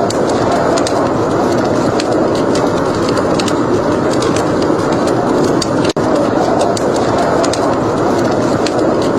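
Wood fire crackling: sharp irregular pops and snaps over a steady rushing noise. The sound drops out for an instant about six seconds in.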